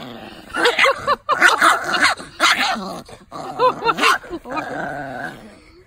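Chihuahua barking in many short barks, several in quick succession, while gloved hands reach in around the pig ear she is guarding.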